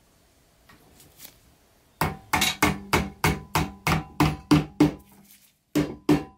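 A hammer tapping a metal setting tool down onto the end of a stainless-steel axle to seat the cap that holds a toy truck's rear wheels. There are quick metallic strikes about three a second, each with a ringing tone. They start about two seconds in, and a short pause comes a little after five seconds.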